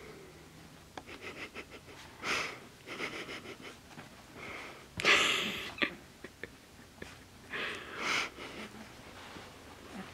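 Two four-week-old Finnish Spitz puppies play-wrestling, with small clicks and scuffles and several short, breathy bursts of puppy huffing and snorting; the loudest burst comes about five seconds in.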